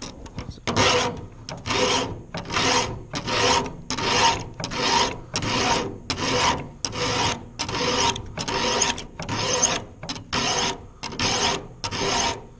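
Round chainsaw file rasping across a saw-chain cutter in steady, even strokes, about three every two seconds, each with a faint metallic ring from the chain. The strokes are filing out the tooth's gullet with downward pressure to reshape a damaged cutter.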